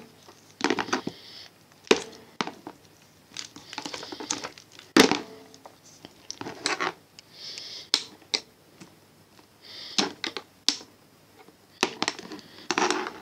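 Plastic wrestling action figures knocked together and against a toy ring by hand: a run of irregular sharp clicks and knocks, with short rustling scrapes in between.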